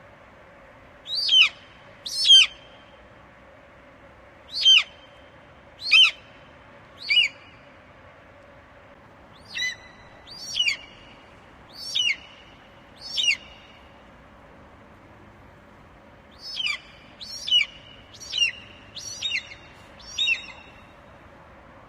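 An eagle calling: a series of short, high calls, each falling sharply in pitch, spaced a second or two apart. Near the end a quicker run of about five calls.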